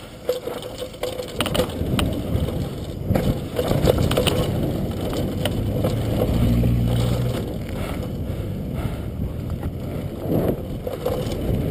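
Mountain bike descending a rough dirt trail at speed: chain, frame and suspension rattling and clattering while the tyres crunch over dirt and stones. A short, steady low drone joins in about halfway through.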